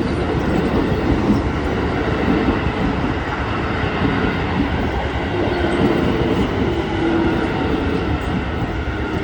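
Keio Line electric train running past close by at a level crossing, a steady loud rumble of wheels on rails.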